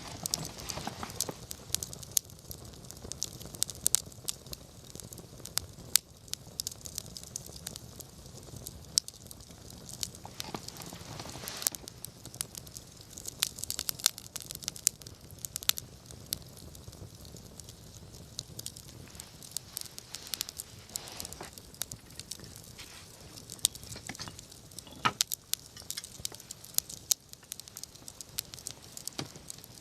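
Wood fire crackling, with sharp irregular pops and snaps over a low steady rumble of burning.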